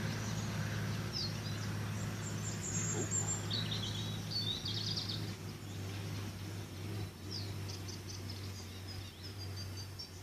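Small birds singing in short chirping phrases over a steady low hum.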